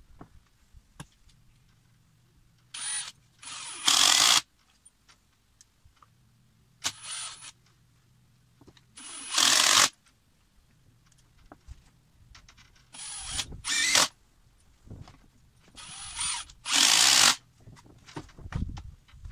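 Cordless impact driver driving four screws into a wooden railroad-tie block to fasten a pipe floor flange: each time a short run, then a louder burst about a second long.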